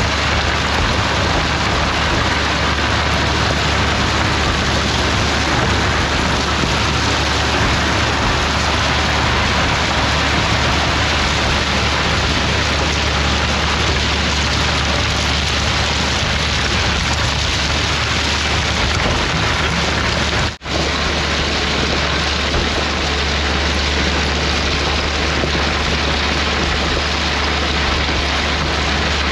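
Heavy equipment running steadily while grading passes are made on a freshly rocked gravel road: a loud, even rushing noise over a constant low hum. The sound cuts out for an instant about 20 seconds in.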